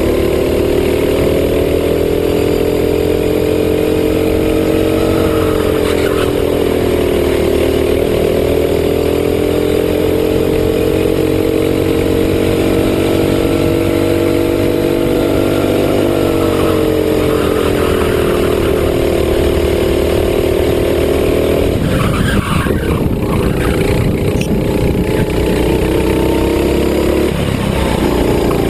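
Racing kart engine running hard, heard from the kart's onboard camera, its pitch dipping and rising gently through the bends. About three quarters of the way through, the steady note breaks up into a rough noise for a few seconds as the kart slows into a corner, then comes back up near the end.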